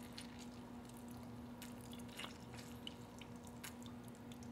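Lemon half squeezed by hand, its juice dripping into the empty plastic jar of a Vitamix blender: faint scattered drips and small squelches over a steady low hum.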